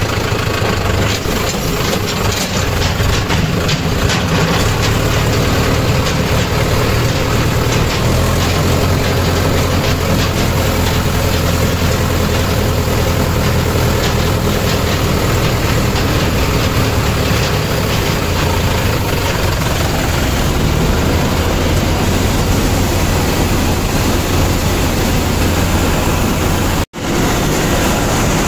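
Tractor engine running steadily as the tractor drives along, heard from the driver's seat, with a strong low hum. The sound cuts out for a split second near the end.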